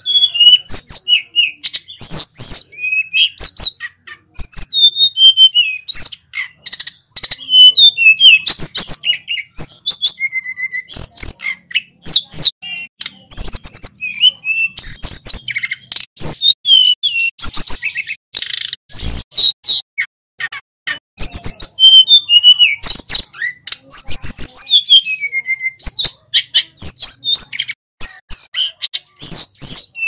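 Male hill blue flycatcher (sulingan gunung) singing continuously. It pours out fast, varied whistled phrases of rising and falling notes, with only brief pauses between runs.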